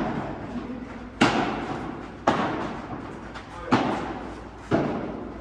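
Padel rally: the ball popping sharply off rackets and glass walls four times, about a second apart, each hit echoing briefly in the hall.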